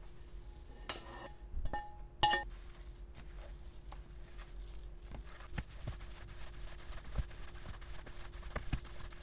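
A frying pan clinks and scrapes against the rim of a mixing bowl as sautéed onions are tipped in, in the first couple of seconds. Then ground beef is kneaded by a hand in a plastic glove: a run of short, wet squishing sounds that could be taken for mouth noises.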